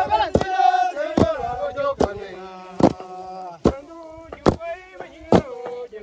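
A group of men chanting a work song while striking the ground in unison with long-handled hand tools, a sharp thud about every 0.85 seconds in time with the chant. The voices are strongest over the first two seconds.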